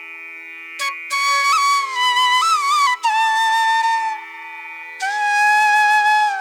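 Background music: a solo flute melody with held notes and sliding, ornamented bends over a steady drone.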